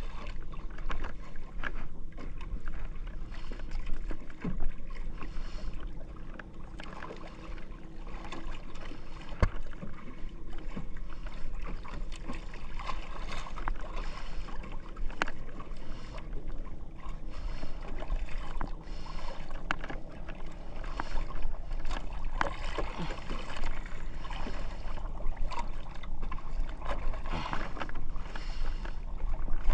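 Sea water sloshing and splashing against the hull and outrigger float of a small outrigger boat, with a steady rush of water and wind and scattered light knocks.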